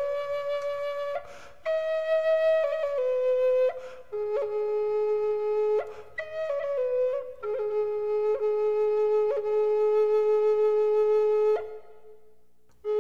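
Background music: a solo flute plays a slow melody of long held notes with quick ornamental turns between them, pausing briefly between phrases and for about a second near the end.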